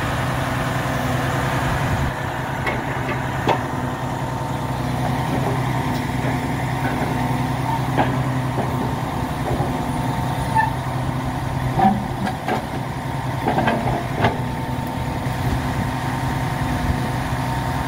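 Heavy truck's diesel engine running steadily at a low, even speed. Over it come a few short metallic clicks and knocks from the hydraulic grapple loader working around the rail; the loudest comes about two-thirds of the way in.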